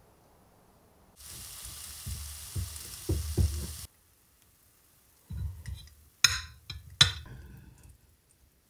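Green beans sizzling in a cast-iron skillet as tongs toss them, with a few knocks against the pan; the sizzle starts about a second in and cuts off at about four seconds. Later a knife and fork cut steak on a ceramic plate, with two sharp clinks.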